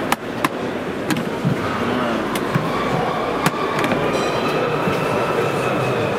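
A few sharp clicks and knocks from a MOF Wobbler Box plastic tackle box as it is gripped and sat on, spread over the first few seconds, against the steady murmur of a crowded exhibition hall.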